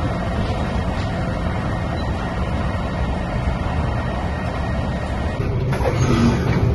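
Passenger train running at speed, heard from inside the carriage: a steady low rumble of wheels on track, growing a little louder about five seconds in.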